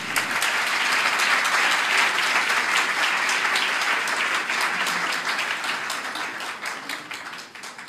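Audience applauding: dense, steady clapping from a seated crowd that starts to die away near the end.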